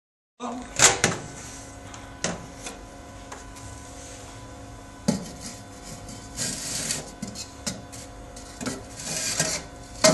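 Steady hum of a running microwave oven, with a few sharp clinks and knocks and two short bursts of hiss.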